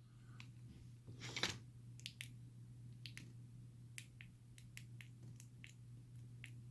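Faint, scattered light clicks and taps of small metal lock pins and tools being handled, over a steady low hum.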